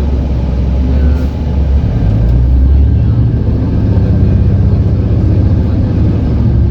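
City bus engine and drivetrain heard from inside the passenger cabin: a loud, low rumble that rises in pitch about two seconds in as the bus speeds up, then holds steady.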